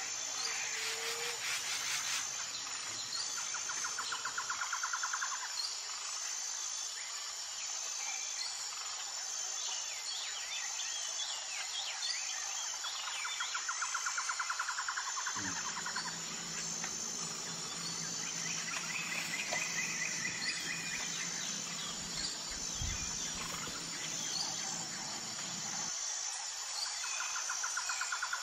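Insects and birds: a steady high-pitched insect chirring, with buzzy trills lasting a few seconds that come and go, and short bird chirps. A low steady hum comes in about halfway through and stops a couple of seconds before the end.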